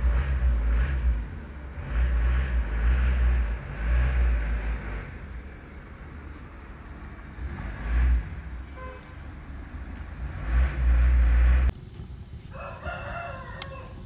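Wind buffeting the microphone in repeated low rumbling gusts. After an abrupt cut, a rooster crows once near the end.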